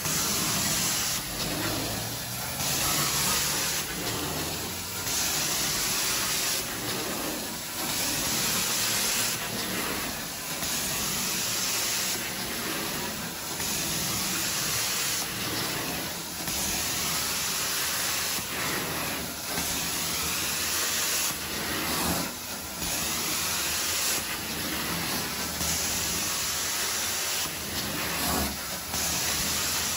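Carpet-cleaning extraction wand drawn across carpet in repeated strokes: a steady hissing rush of suction and spray water that swells and dips every one to two seconds.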